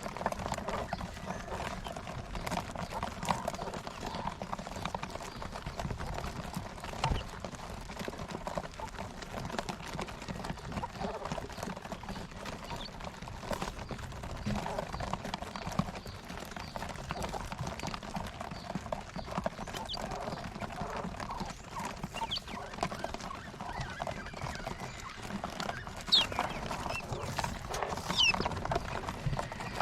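A flock of caged quail: many small clicks of pecking and scratching mixed with a dense chatter of soft calls, and a couple of sharper high chirps near the end.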